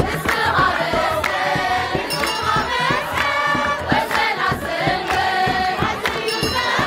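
A crowd singing a hymn together in chorus, to hand-clapping and a large hand drum (kebero) keeping a steady beat.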